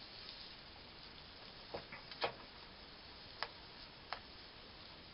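Diced Spam and pineapple frying quietly in a nonstick pan as they are stirred with a plastic slotted spatula: a faint hiss with a few sharp ticks spread through the middle.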